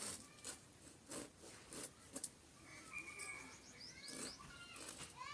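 Birds chirping, with several short, sharp knocks in the first half.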